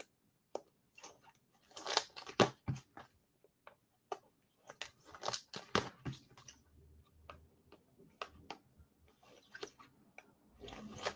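Faint, irregular clicks and crunchy ticks, coming in small clusters with short gaps between them.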